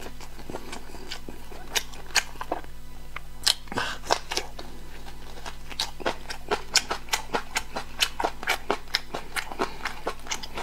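Close-miked mouth sounds of eating: wet smacks and clicks of chewing. They are scattered at first and come about three to four a second in the second half.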